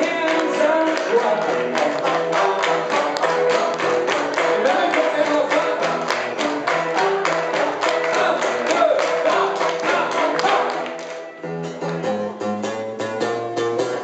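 Live country band music with a man singing and a steady, fast tapping beat. About eleven seconds in, the music drops to a quieter, lower passage.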